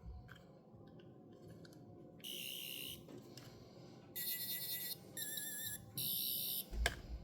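Toy sonic screwdriver's electronic sound effect: four short, high-pitched electronic buzzes, one wavering in pitch, followed by a sharp click near the end.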